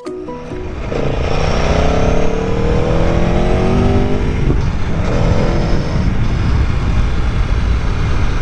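Motorcycle engine accelerating under way. Its pitch climbs for about three seconds, drops at a gear change, and climbs again, over a heavy low rumble of wind and road noise.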